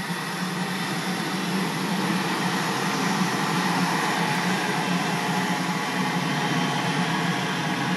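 Cessna Citation business jet's twin turbofan engines running at taxi power: a steady jet whine and rush that swells a little over the first few seconds, then holds.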